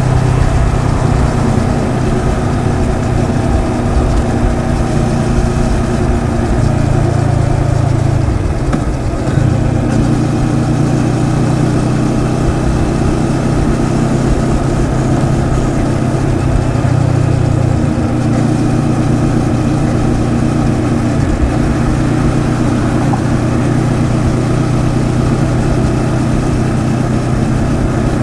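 Moto Morini X-Cape's 650cc liquid-cooled parallel-twin engine running at fairly steady, low revs, with a brief dip and change in pitch about nine seconds in.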